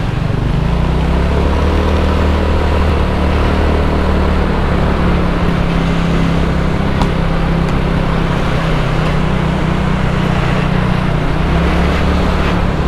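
Motorcycle engine running steadily while riding along a city street, with road noise from the ride.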